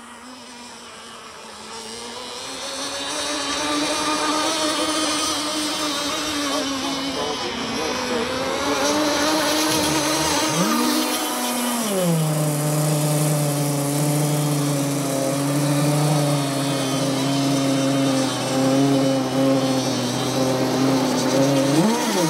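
Small OS 21XM 3.5cc glow (nitro) outboard engine on an RC tunnel-hull boat running at high revs. It grows louder over the first few seconds, and its pitch rises and falls several times.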